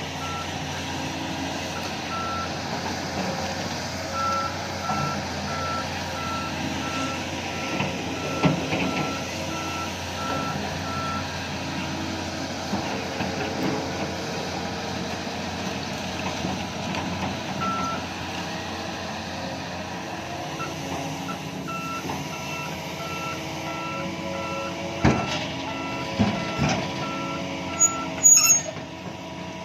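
A heavy-equipment backup alarm beeping at about two beeps a second, in runs that stop and start, over the steady running of heavy machinery engines. A few sharp knocks near the end.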